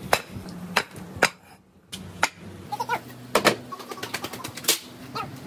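About six sharp, separate knocks of hard objects, the clack of hollow concrete blocks being handled and set down on concrete, with a few faint short chirps in the middle.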